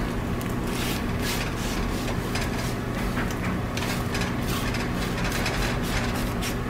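Red plastic spatula edge chopping and scraping through a cooked egg against the bottom of a Gotham Steel nonstick pan, in short irregular strokes about two or three a second.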